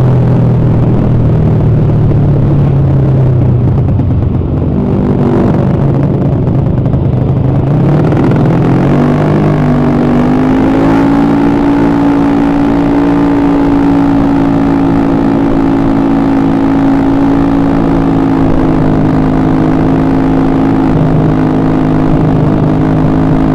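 Honda BeAT carburettor scooter's single-cylinder engine, freshly rebuilt with all-new internals, running steadily. About nine seconds in it rises in pitch to a higher engine speed and holds there.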